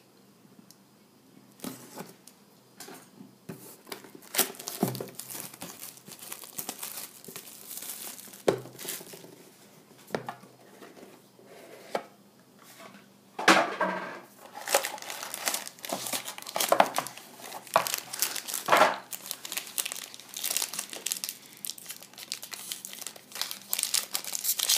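Packaging crinkling and tearing as a sealed trading-card box is unwrapped and opened, then a foil card pack crinkling and tearing as it is pulled open, denser and louder over the last few seconds.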